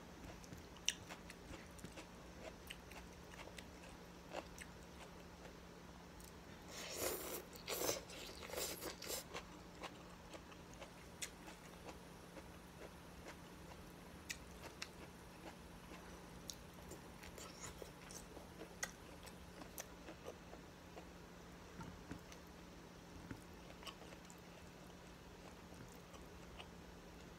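A person eating shrimp and rice noodles with their fingers: faint chewing with small wet mouth and finger clicks scattered throughout, and a louder stretch of chewing noise about seven to nine seconds in, over a faint steady hum.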